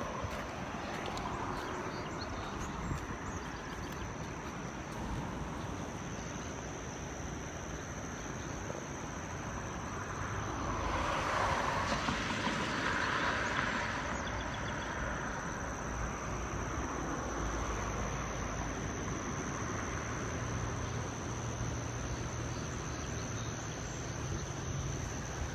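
Outdoor ambience: a steady high-pitched insect trill over a general background hiss, with a vehicle passing by about halfway through.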